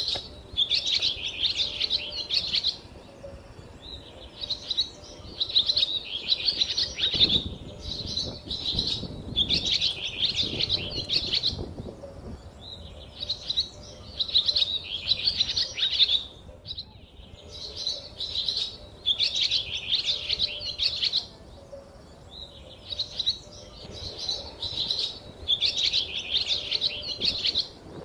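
A small bird chirping rapidly in high-pitched bursts of a second or two, repeating every few seconds.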